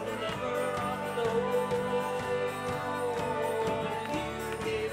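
Live band music: a trumpet plays a long held melody line over the band's steady drum and guitar accompaniment.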